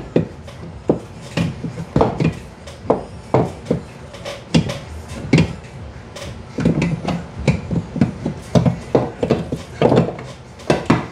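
A replacement A/C compressor being wrestled into its mounting spot, giving irregular metal knocks and clunks, several a second.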